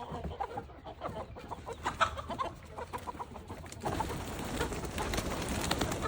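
Chickens clucking in short calls as they are let out of the coop, with a steady rustling, scuffling noise setting in about four seconds in.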